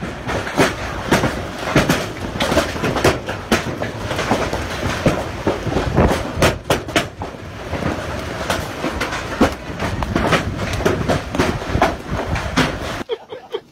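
Hailstorm: hailstones and heavy rain pelting down, a dense steady noise full of sharp clattering strikes on hard surfaces. The sound cuts off suddenly shortly before the end.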